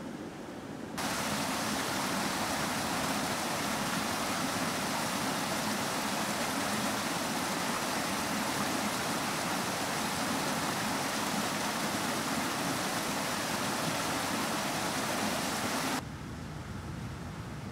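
Water rushing and splashing at a wooden waterwheel, a steady full-bodied rush that starts abruptly about a second in and cuts off near the end. Before and after it, only a quieter steady outdoor background.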